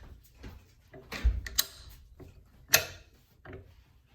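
AR-15 metal parts being handled and fitted together: a series of sharp clicks and knocks, the loudest coming a little under three seconds in.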